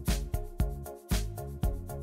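Background music with a steady beat of about two thumps a second under sustained pitched notes.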